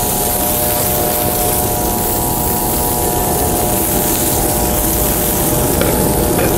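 Steady roar of an outdoor propane burner under a saute pan, with perch fillets and red peppers sizzling in the hot oil.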